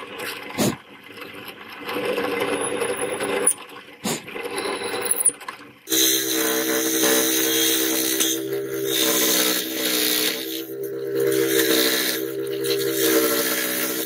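Drill press boring a row of holes through a brass disc, running in stretches with brief pauses and a sharp click or two. Then the spinning bit is worked sideways through the holes to open them into a slot: a steady motor hum with cutting noise that rises and falls every couple of seconds.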